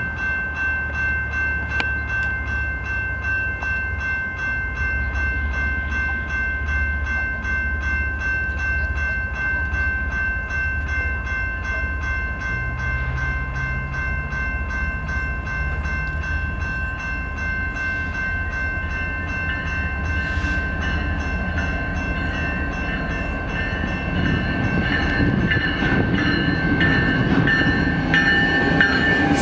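Canadian National diesel locomotive approaching, its engine a steady low rumble that grows louder and rougher over the last few seconds as the train draws near, with wheel and rail noise coming in. A steady high-pitched tone sounds throughout.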